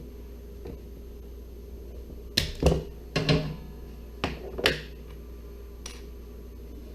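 Hand wire strippers snapping shut and springing open on wire ends: three quick pairs of sharp clicks, followed by one faint click.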